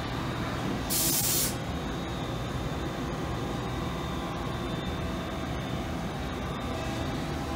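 Doosan VC400 vertical machining center running, with coolant spraying inside the enclosure: a steady mechanical hum with faint high tones. A loud hiss lasting about half a second comes about a second in.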